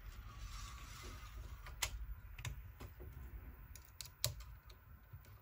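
Faint scattered clicks and light knocks of hands reassembling a Prusa i3 3D printer's plastic extruder and handling its filament spool, with a small screwdriver being worked into the extruder.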